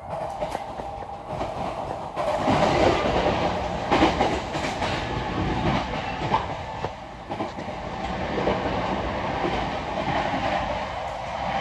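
JR East E231-series electric commuter train running at speed, heard from inside the passenger car. It is a steady rumbling running noise with scattered knocks from the wheels, and it gets louder about two seconds in.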